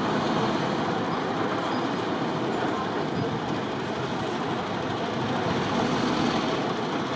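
Steady city street noise of road and rail traffic, with an S-Bahn train running on the elevated track.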